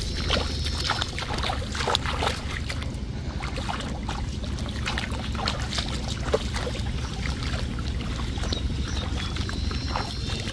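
Bare feet wading and splashing through shallow paddy water and mud, in many short irregular splashes over a steady low rumble.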